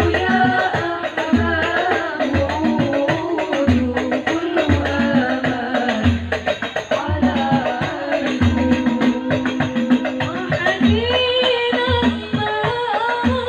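Sholawat al-Banjari music: young female voices singing the melody together into microphones over hand-struck frame drums (rebana) keeping a steady rhythm, with a deep bass drum stroke a little more than a second apart.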